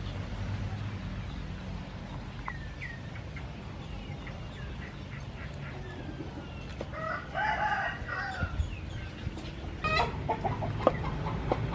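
Fowl calling outdoors, with one longer, pitched call about seven seconds in. Near the end a cleaver chops cooked cuttlefish on a wooden cutting board with a few sharp knocks.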